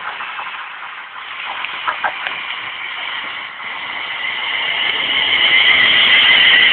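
Class 350 Desiro electric multiple unit approaching and running past close by, its running noise growing steadily louder, with a steady high whine building as it nears. A few sharp clicks sound in the first couple of seconds.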